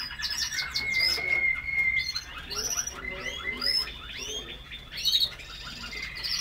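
Several caged canaries singing at once: rapid trills and quick rising and falling chirps, with one whistled note held for over a second near the start.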